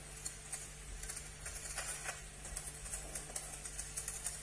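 Faint soundtrack of an AI-generated video playing in a web browser: light, irregular ticks and rustles over a steady low hum.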